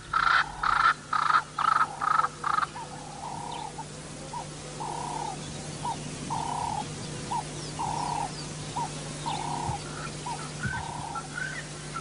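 Wild animal calls: a run of evenly spaced, repeated calls about two a second, then slower, lower calls, some short and some drawn out, with a few faint rising chirps near the end. A steady low hum runs underneath.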